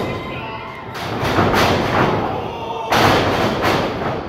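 Wrestlers' bodies hitting a wrestling ring's mat: two heavy thuds, the sharper and louder one about three seconds in, booming through the ring.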